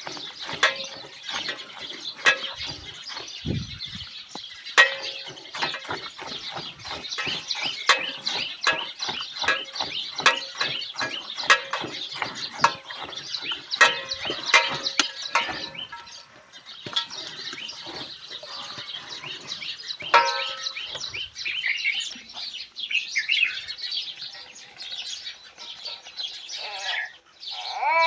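A cow being milked by hand into a steel bucket of frothy milk: rhythmic squirts of milk into the foam, about two a second, thinning out after about sixteen seconds. Birds chirp in the background.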